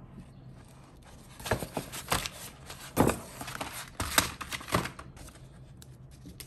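A stiff paper shopping bag rustling and crinkling as boxes are handled inside it and lifted out, with a cluster of sharp crackles from about one and a half to five seconds in.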